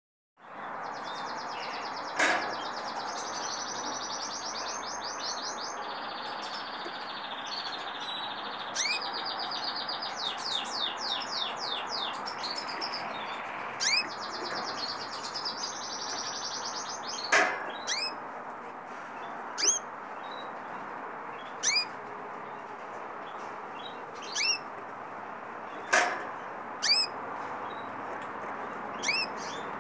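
Canaries: rapid trilled song in the first half, and about ten loud, short, rising chirp calls scattered through, more of them in the second half, over a steady background hiss.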